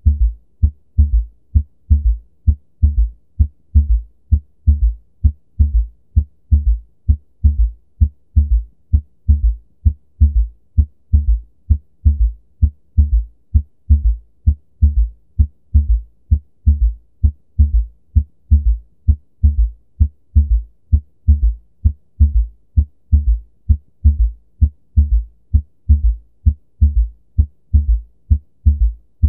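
Recorded heart sounds of an S3 gallop: a steady, repeating run of short low thuds, the third heart sound following S2 early in diastole and giving the beat a galloping rhythm. The extra sound comes from rapid filling of the ventricles.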